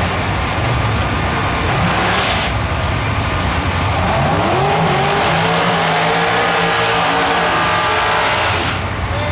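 Two drag-racing cars doing burnouts at the start line. The engines run steadily at first, rev up from about four seconds in and are held at high revs while the rear tyres spin, then ease off near the end.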